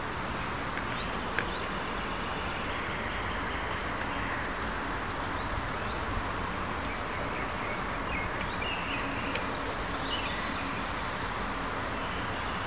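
Garden ambience: a steady low rumble and hiss with scattered short bird chirps now and then.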